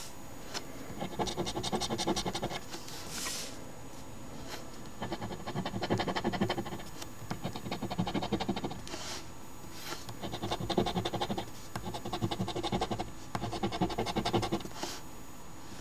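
A coin scratching the latex coating off a paper scratch-off lottery ticket, in about five spells of quick back-and-forth scraping strokes. Short breathy puffs fall between some of the spells.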